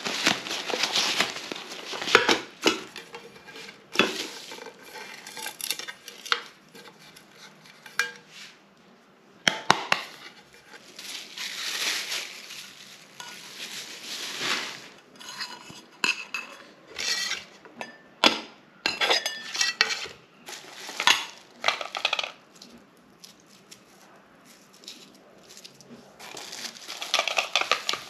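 Metal camping pots, pan and utensils being handled, with irregular clinks, knocks and scrapes.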